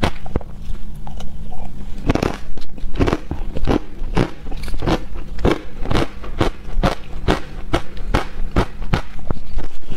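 Matcha-coated ice crunched between the teeth close to the microphone: a steady run of sharp crunches, about two a second.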